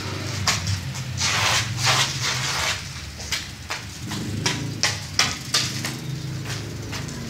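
Irregular taps, knocks and scrapes on a gritty concrete floor, with noisy scraping sounds about a second or two in, over a steady low hum.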